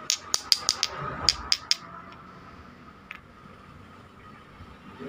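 Two rough agate chunks knocked against each other, giving a quick run of about eight sharp stone clicks in the first two seconds and one more click about three seconds in.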